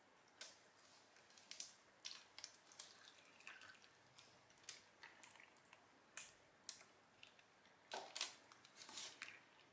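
Faint, irregular soft splats and small clicks as thick soap batter at trace pours from a plastic bucket into a lined mould, with a few louder ones near the end.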